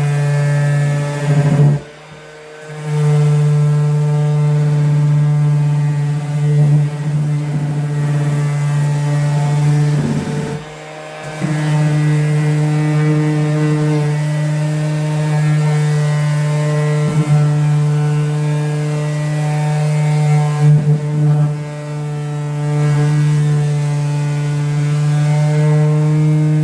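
Aldi electric sanding machine running with a steady, loud motor hum. It cuts out briefly about two seconds in and again around ten seconds in, starting up again each time.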